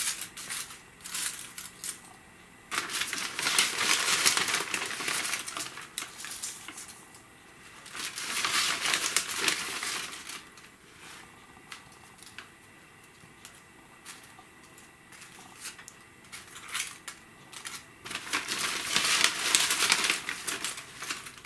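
Dry leaves crinkling and rustling as they are handled and laid over soil, in three main bouts about three, eight and nineteen seconds in, with fainter rustles between.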